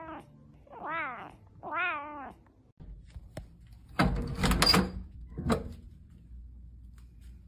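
A cat meowing, three calls that each rise and fall in pitch, the first trailing in from before. A few seconds later a doorknob rattles and a door latch clicks open, with a cluster of loud knocks about four to five seconds in and one more knock shortly after.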